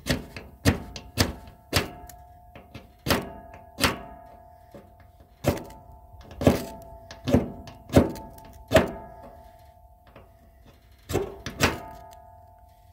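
Flint-and-steel fire starter being struck about a dozen times at uneven intervals, each strike a sharp metallic scrape followed by a short ringing tone from the steel, as sparks are thrown into the tinder.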